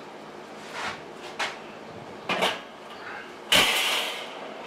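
Wire cooking grate of a Weber charcoal kettle being lowered into place over hot coals. There are a few light metallic clinks, then a louder metal clatter and scrape about three and a half seconds in as the grate settles onto the kettle.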